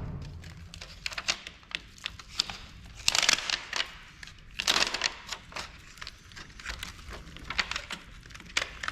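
Hands working on a partly dismantled LCD monitor: scattered clicks and taps of its parts, with two longer scraping, crinkling rustles about three and four and a half seconds in.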